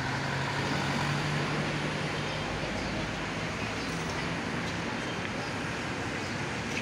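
Road traffic passing below: a steady mix of engine and tyre noise, with the low hum of a vehicle engine standing out for the first couple of seconds and again briefly later.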